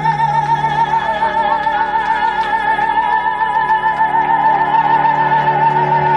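Live gypsy-klezmer band holding a long sustained chord: a female singer holds one high note with vibrato over a steady low double-bass note, with clarinet, acoustic guitar and accordion.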